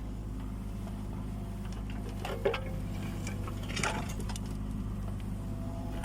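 Kubota U20 mini excavator's diesel engine running steadily under work, with two short scraping clinks of the bucket about two and a half and four seconds in.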